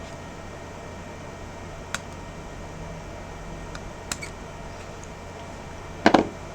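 Small metal tools clicking against a phone's internal parts and screws: single light clicks twice, then a louder quick double click near the end, over a steady electrical hum.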